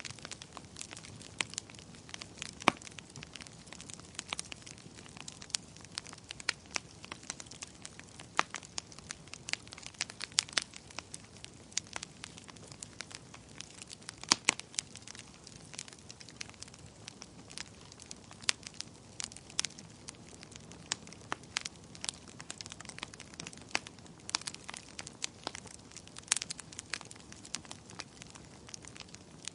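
Wood fire crackling: irregular sharp pops and snaps, some louder than others, over a soft steady hiss of burning.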